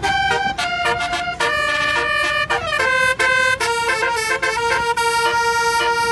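Bus telolet basuri horn playing a tune: several notes sound together and step to new pitches every half second or so, then hold one long chord from about three and a half seconds in.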